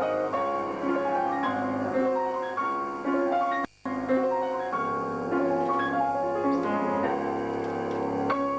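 Classical solo played on a keyboard instrument: a stream of notes over held lower notes, with a momentary dropout in the sound a little before the middle.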